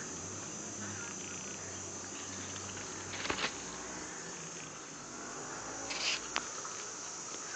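A Boer goat and an Ajmeri goat butting heads: sharp knocks of head on head about three seconds in and again about six seconds in, over a steady high insect chorus.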